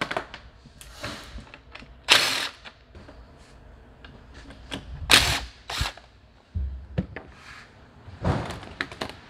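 A cordless drill-driver backing screws out of a mini bike's plastic chain guard, then the guard being handled: a handful of short, separate noisy bursts with knocks and clicks between them.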